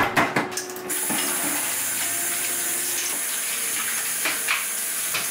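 Kitchen faucet running steadily into a sink, the water starting about a second in, after a few sharp clicks. A few soft knocks sound over the stream.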